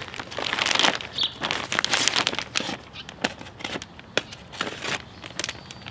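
Thin plastic wrap crinkling and crackling as it is cut and pulled off a vacuum-packed foam mattress. Denser for about the first second, then scattered sharp crackles.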